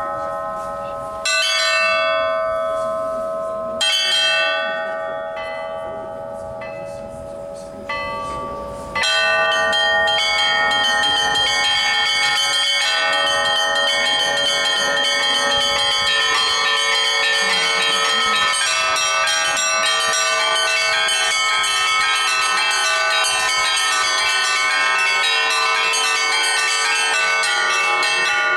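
Russian Orthodox church bells rung by a bell ringer: three widely spaced single strokes, each left ringing and fading, then about nine seconds in a continuous full peal of many bells struck in quick succession.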